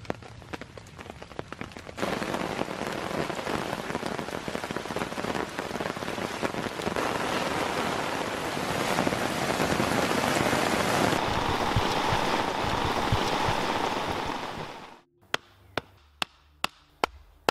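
Heavy rain pouring down through forest onto the ground, a dense steady hiss, which cuts off suddenly near the end. Then comes a quick series of sharp knocks, about two a second.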